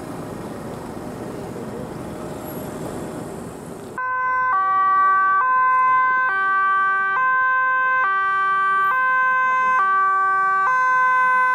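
Steady outdoor noise. About four seconds in it cuts abruptly to a Dutch police car's two-tone siren, alternating between a high and a low tone, each held just under a second.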